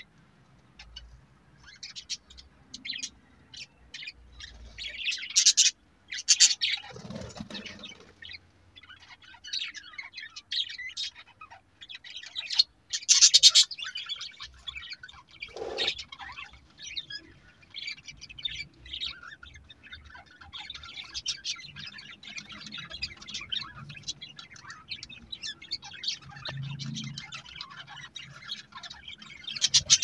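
A flock of budgerigars chattering and chirping without pause, a busy tangle of quick high twitters, with louder bursts of chatter about five and thirteen seconds in.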